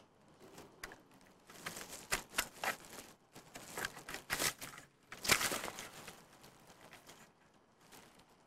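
Dry grass rustling and crackling close to the microphone in irregular bursts, loudest in the middle and dying away near the end.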